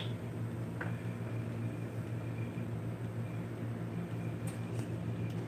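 Steady low hum over a faint hiss, with a few light clicks of stirring in the mixture on a plastic plate, about a second in and twice near the end.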